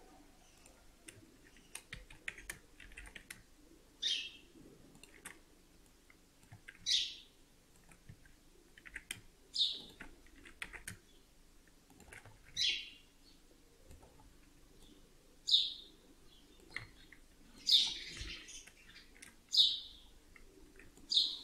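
A bird chirping in short single calls, about eight of them two to three seconds apart, over faint clicking of a computer keyboard and mouse.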